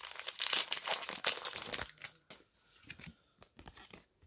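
A Pokémon Scarlet & Violet foil booster pack crinkling and tearing as it is ripped open, for about two seconds. After that there are only a few faint clicks of cards being handled.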